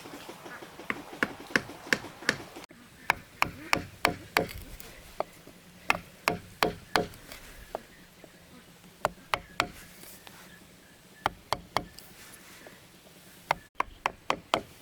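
Sharp knocks of hard blows, coming in short runs of three to five strikes about three a second, with pauses between the runs.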